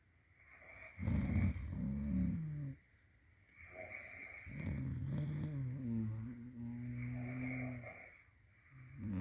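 Sleepers snoring: a snore about half a second in, then a long drawn-out snore that settles into a steady buzz before fading, and another short snore near the end, with quiet breaths between.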